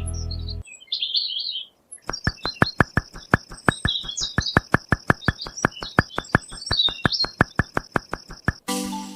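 Birds chirping over a rapid, even series of clicks, about five a second, that start about two seconds in and stop near the end.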